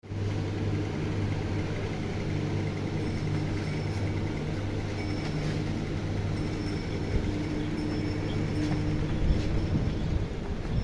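A steady low mechanical hum, like a motor or machine running, with a few faint ticks over it.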